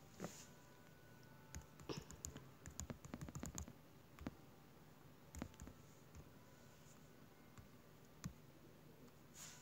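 Faint clicks of typing on a tablet's touchscreen keyboard: a quick run of about a dozen clicks about two seconds in, then a few single taps.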